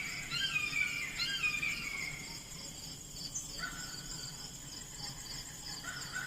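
Outdoor ambience: songbirds calling in short falling chirps for the first couple of seconds, over a steady, rhythmic chirring of insects and a faint low hum.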